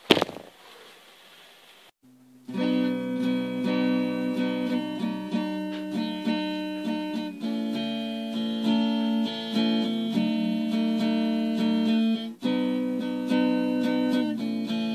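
A sharp knock at the start, then about two seconds in, acoustic guitar music begins, with plucked and strummed notes.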